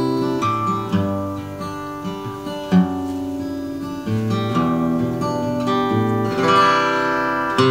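Acoustic guitar played solo, the instrumental introduction of a song: ringing chords that change every second or so.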